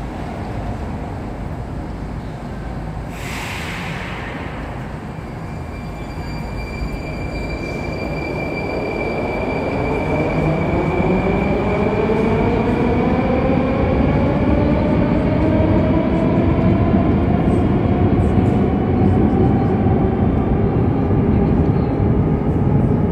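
Metro train pulling out of an underground station. A short burst of air hiss comes about three seconds in, then the traction motors whine in several tones that rise steadily in pitch and grow louder as the train accelerates away.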